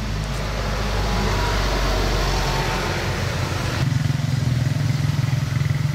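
Motor vehicle engine running steadily, a low hum that becomes stronger and steadier about four seconds in.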